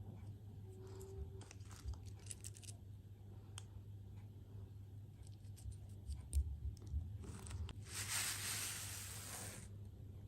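Close-up handling noises: scattered light clicks and taps, a few soft thumps, then a rustling crinkle lasting about a second and a half near the end.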